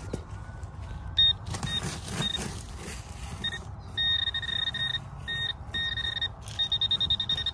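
Metal detector beeping over a buried target it takes for a penny: a steady beep of one pitch, a few short beeps at first, then longer tones from about four seconds in, breaking into quick pulses near the end. A steady low rumble runs underneath.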